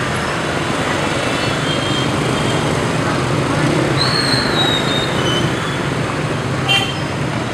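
Dense motorbike and scooter traffic running steadily through a street intersection, a constant din of small engines. A short, high squeal sounds about four seconds in, and a brief sharp sound comes near the end.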